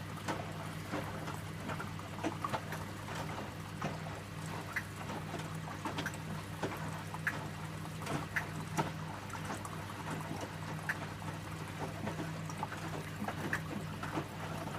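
Electrolux W455H commercial washing machine filling for a rinse: water pouring and splashing into the drum over a steady low hum, with scattered small splashes and clicks.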